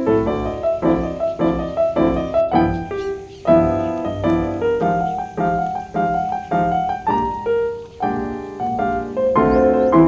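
Background piano music: a calm melody over chords, with a new note or chord struck about twice a second.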